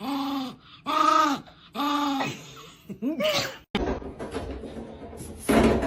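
A dog giving four short whining howls, each rising and falling in pitch, about one a second. An abrupt cut then brings in rustling noise.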